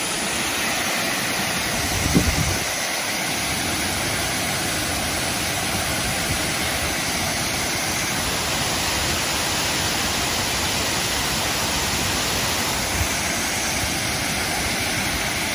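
Water pouring over a low stone weir into a shallow pool: a steady, even rush. A brief low thump about two seconds in.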